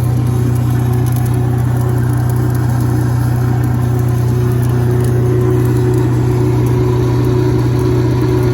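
Denyo DAW-180SS engine-driven diesel welder running steadily at a constant speed.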